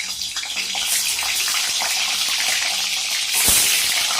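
Eggs frying in hot oil in a pan: a steady sizzling hiss that swells a little after about three seconds, with one soft knock about three and a half seconds in.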